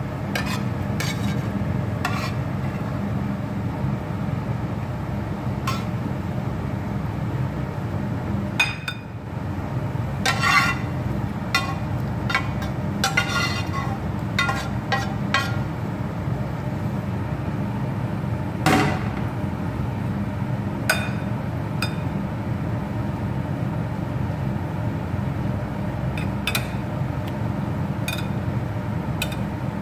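A metal spoon clinking and scraping against a glass bowl and a pot as sauce and vegetables are spooned out. A dozen or so sharp clinks come at uneven intervals, the loudest about halfway through, over a steady low hum.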